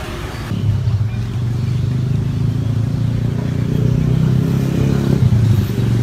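An engine running steadily with a low, even hum, coming in about half a second in.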